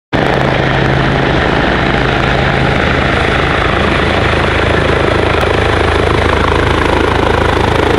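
Helicopter running loudly and steadily: main rotor beating fast and evenly over the engine's whine, as it flies in low toward the listener.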